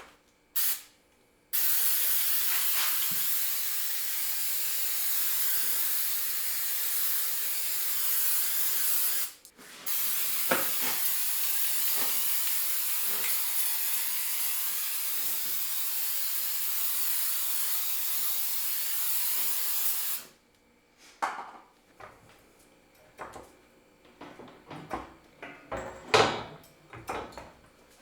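Aerosol can of Fluid Film rust inhibitor spraying: a short spurt, then two long, steady hisses of about eight and ten seconds with a brief pause between them. Near the end come scattered light knocks and clicks of handling.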